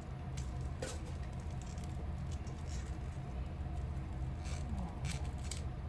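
A few light clicks and rustles as a leather bag strap is taken out and handled, over a steady low hum.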